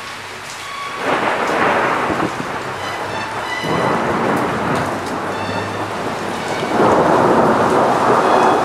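Thunderstorm: heavy rain falling steadily, with rolls of thunder that swell three times, about a second in, around the middle and near the end.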